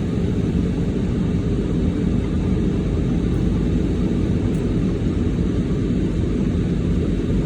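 Steady low rumble inside a car cabin, the engine running.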